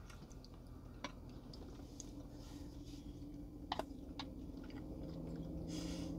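A person chewing a mouthful of food, with a few soft mouth clicks, over a faint steady low hum.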